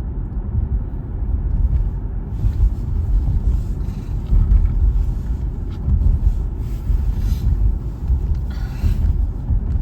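Low, fluctuating road rumble inside the cabin of a moving car, with a fainter hiss of tyres and passing air above it.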